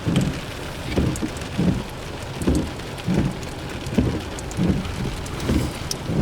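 Heavy rain, with low rumbling thuds that recur about every three-quarters of a second.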